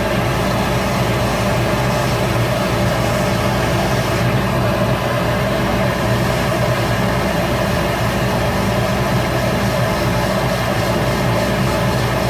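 Shop Fox W1836 midi wood lathe running steadily with a constant motor hum.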